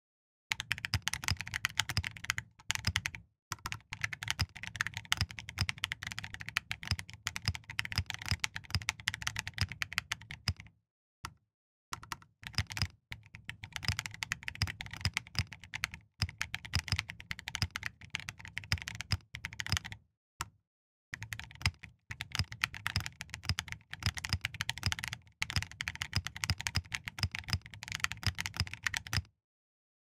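Typing on a mechanical keyboard with lubed Gazzew Boba LT switches, Cerakey ceramic keycaps, a POM plate and a resin case, a very deep, marbly thock. Fast, steady keystrokes, with short breaks about eleven and twenty seconds in, where only a few single keys sound.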